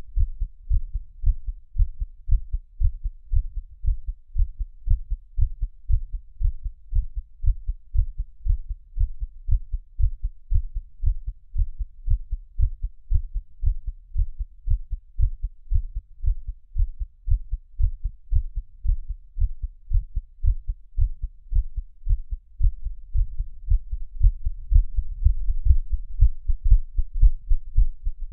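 A person's heart beating in a steady, regular rhythm, each beat a short low-pitched thud. The beats grow a little louder about two-thirds of the way through.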